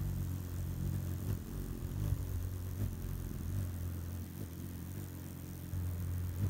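Low humming drone of a hummingbird's wings beating close to the microphone as it hovers and feeds at a nectar feeder. The hum swells and fades as the wings speed up or settle.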